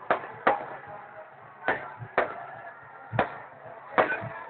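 Fireworks going off: about six sharp, irregularly spaced bangs.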